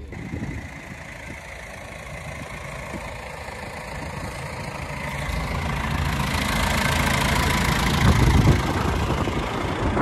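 Ford tractor's diesel engine running, growing steadily louder and loudest about eight seconds in as it passes close by.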